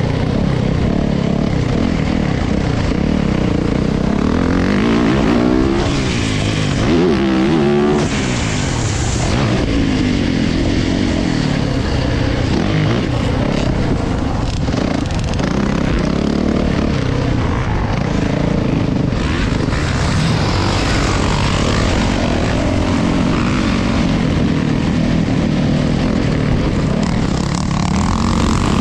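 Motocross bike engine close to the microphone, revving up and down through the gears as the bike is ridden hard around a dirt track, with the pitch rising and falling again and again.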